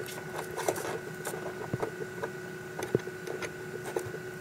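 Small irregular clicks and taps of a hand fitting a small metal part into the foam wall of a mini egg incubator, two sharper clicks a little under two seconds and about three seconds in, over a steady machine hum.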